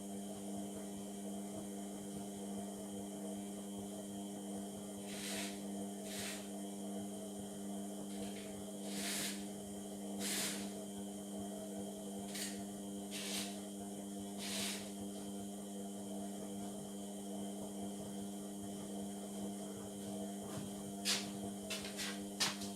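Indesit MTWC71252WUK washing machine tumbling its wash on a Cotton 30 cycle: the drum motor runs with a steady hum, and the wet bath mat and water swish in the drum every second or so through the middle. A few sharp clicks come near the end.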